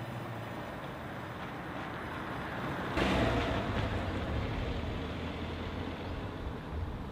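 Volkswagen up!'s 1.0-litre three-cylinder petrol engine running with tyre noise as the small hatchback drives slowly across tarmac, first coming closer and then pulling away. The sound jumps suddenly louder about three seconds in, then eases off.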